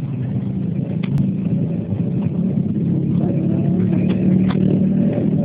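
An engine runs steadily with a low drone, growing slightly louder partway through, with a few faint clicks on top.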